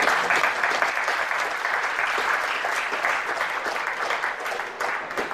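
Audience applauding: many hands clapping densely together, easing off near the end.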